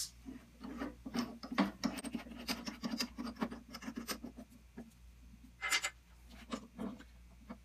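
Small metallic clicks and scrapes of a drill press chuck being turned by hand as the bit is changed, a 5/16-inch bit coming out and a 3/8-inch bit going in. There is a quick run of ticks and rattles for about four seconds, a louder scrape near six seconds, then a few more clicks.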